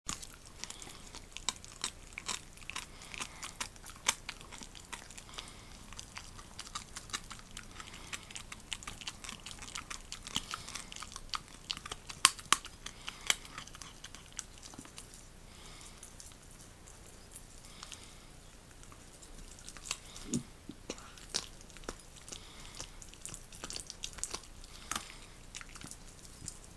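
Jack Russell terrier chewing and gnawing a raw pig's trotter: irregular sharp crunches and clicks of teeth on skin and bone, thinning out for a few seconds past the middle before picking up again.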